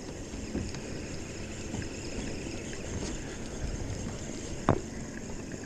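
Steady wind and water noise around a small open fishing boat, with one sharp knock about three-quarters of the way through.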